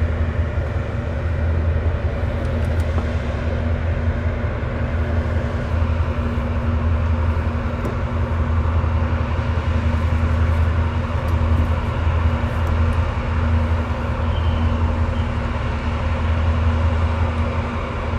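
Tokara-class coast guard patrol vessel's diesel engines running: a steady low drone with a constant hum above it.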